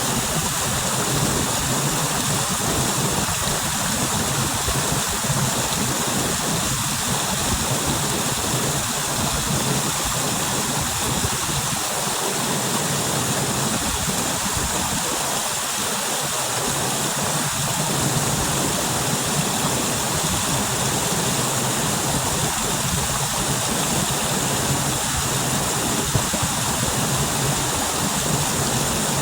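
Small upland waterfall and stream, water pouring and splashing in a steady rush.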